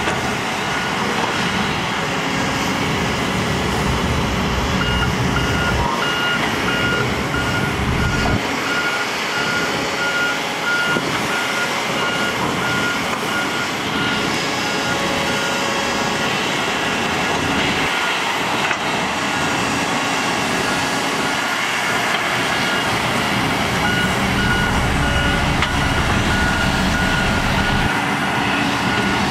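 Diesel engines of heavy earthmoving machines, padfoot soil-compactor rollers among them, running steadily. A backup alarm starts beeping about five seconds in, repeating about once a second.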